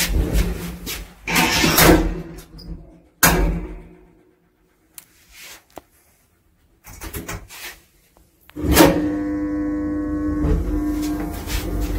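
Passenger lift heard from inside its car: doors shutting with loud knocks and rattles, then a few seconds of near quiet with small clicks. About three-quarters of the way through, the lift's drive starts suddenly and runs with a steady hum as the car travels.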